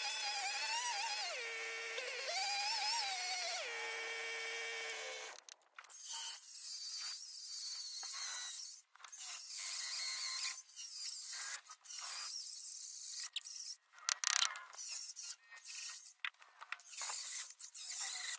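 Chainsaw revving up and down as it cuts into a round of wood, its pitch sagging under load. About five seconds in it stops, and an angle grinder carves the wood in bursts broken by brief pauses.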